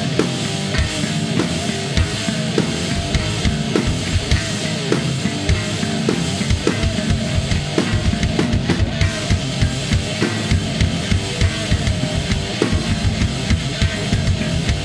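Rock music with a drum kit keeping a steady, driving beat of kick drum and snare.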